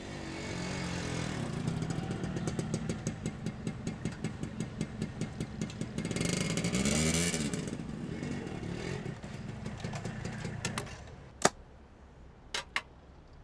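Small motorbike engine running as the bike rides up and pulls in, loudest midway with a rise and fall in pitch, then dying away. A few sharp clicks near the end.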